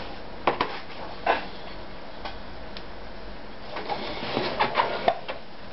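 Clicks and knocks of a plastic-bodied sewing machine being handled: a few sharp clicks in the first second and a half, then a quick run of knocks and scrapes as the machine is turned around on the table near the end.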